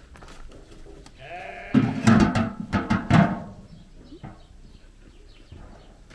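A farm animal bleating once, a loud quavering cry of about two seconds starting a second in.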